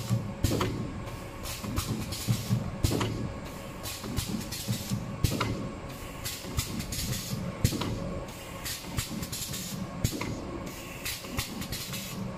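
Automatic alcohol prep pad packaging machine running: a steady hum under a constant stream of quick, irregular clicks and knocks from its moving mechanism.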